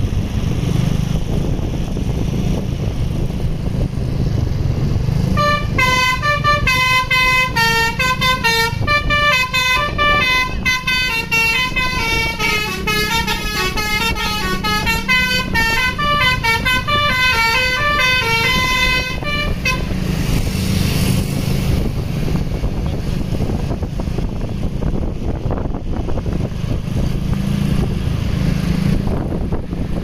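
Tour bus's basuri (telolet) musical horn playing a quick, stepping multi-note melody, starting about five seconds in and stopping about twenty seconds in. Under it runs a steady low rumble of the bus and motor scooter engines.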